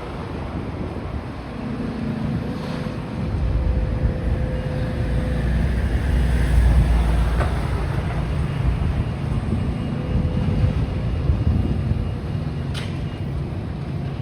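Diesel engine of a demolition excavator running steadily, with wind buffeting the microphone and a few sharp knocks.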